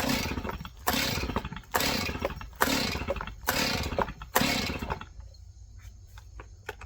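A small two-stroke engine on full choke being pull-started: six quick recoil-starter pulls, less than a second apart, each cranking the engine briefly without it catching, then quiet.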